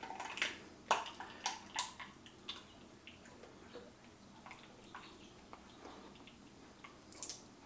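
Ketchup squeezed from an upside-down plastic squeeze bottle into a measuring cup: a few short squirts in the first couple of seconds, then only faint sounds, with one more small squirt near the end.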